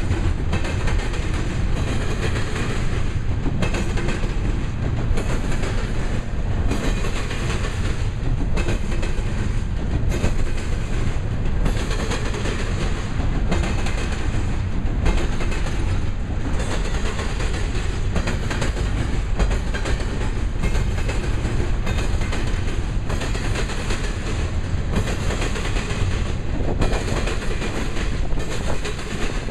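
Double-stack container well cars of a passing freight train rolling by: a steady rumble of steel wheels on rail, with regular clicks about once a second as wheels cross rail joints.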